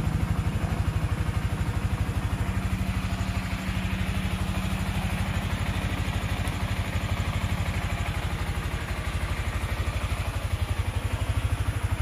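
Yamaha Sniper 155R's single-cylinder engine idling steadily, with a fast, even pulse.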